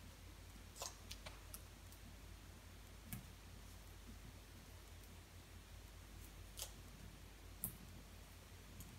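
Faint, scattered clicks and light crinkles from self-adhesive foam stickers being peeled off their backing sheet and the sheet being handled, over a low steady hum.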